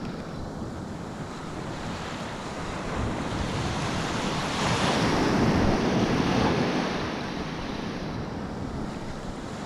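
Ocean surf breaking and washing on a beach, with wind buffeting the microphone. The wash swells louder about halfway through, then eases back.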